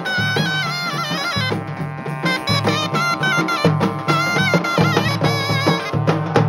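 Live festival folk music: large shoulder-slung drums beaten with sticks in frequent strokes, under a wind instrument playing a melody with sliding, wavering notes.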